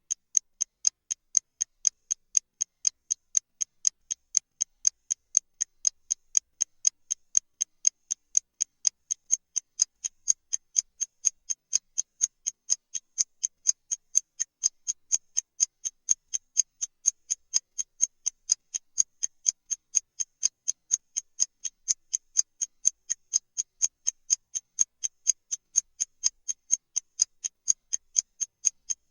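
Clock-tick sound effect of a countdown timer: short, high ticks, evenly spaced at about two a second.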